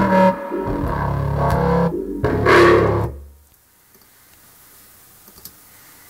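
Distorted, growling drum-and-bass synth bass played back from the sequencer: a few held low notes, with a brighter growl about two and a half seconds in, cutting off about three and a half seconds in, leaving only a faint hiss.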